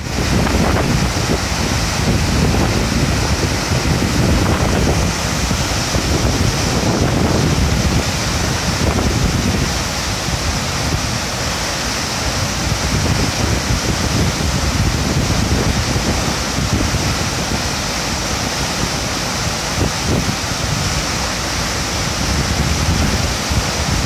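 High Force waterfall on the River Tees, a steady, dense rush of water falling into its plunge pool. Wind buffets the microphone unevenly underneath it.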